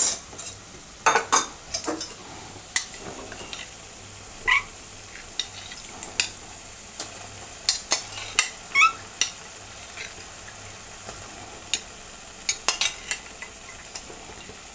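Thick masala gravy sizzling steadily in a kadai while paneer cubes are added, with scattered sharp clinks and knocks of spatula and plate against the pan and a couple of brief squeaks.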